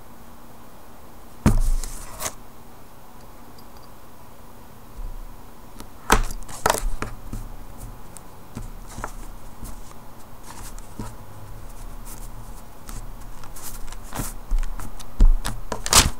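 Hands shaping a polymer clay cane on a paper-covered table: scattered sharp knocks and taps with soft handling rustles in between. The loudest knocks come about a second and a half in, around six seconds in, and twice near the end.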